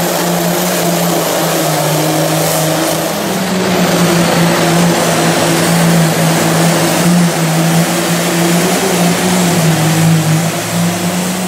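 Allis-Chalmers pulling tractor's engine running flat out under full load as it drags a weight-transfer sled, a loud steady roar whose pitch sags and recovers slightly. It grows louder about three and a half seconds in.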